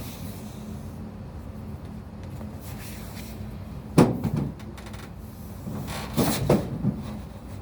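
A sharp knock about four seconds in, then a few more knocks and rattles about two seconds later, like a panel or cover being handled, over a steady low hum.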